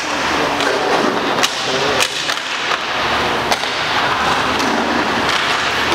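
Roller hockey in play: a steady din of inline skate wheels and players on the rink floor, broken by about five sharp clacks of sticks and puck, roughly one a second, with faint indistinct voices.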